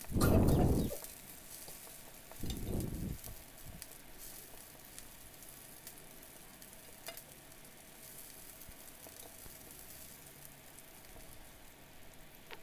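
Green chillies, curry leaves and sliced garlic sizzling in a little oil in a nonstick pan as a slotted spoon stirs them. There are two brief louder stirring sounds, one right at the start and one about two and a half seconds in, then a faint steady sizzle with a few small ticks.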